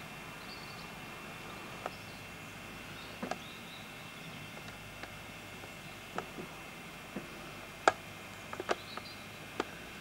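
Steady camcorder hiss with a faint, steady high whine, broken by scattered sharp clicks, the loudest about eight seconds in.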